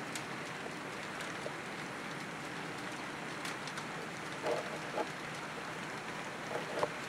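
HO scale model trains running on the layout's track: a steady rolling hiss with scattered small clicks, and a few short squeaks after about four seconds.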